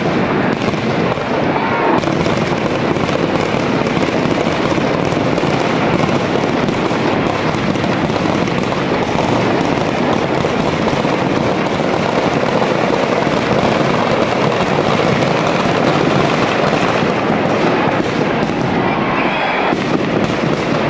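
Firecrackers packed into a burning Ravana effigy, along with ground fireworks, going off in a dense, continuous crackle of rapid pops with no break.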